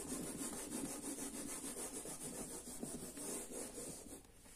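Whiteboard duster rubbing back and forth across a whiteboard, erasing marker writing in quick, even strokes that die away about four seconds in.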